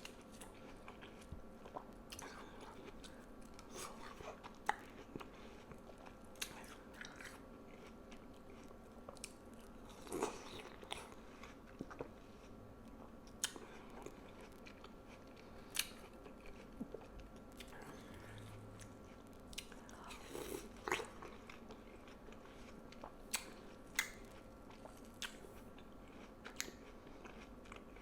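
Close-miked biting and chewing of juicy watermelon: wet crunches and sharp mouth clicks at irregular intervals, with louder bites about ten and twenty-one seconds in.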